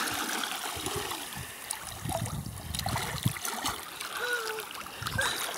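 Sea water splashing and sloshing as a swimmer moves her arms and kicks in shallow water, with small drips and trickles throughout.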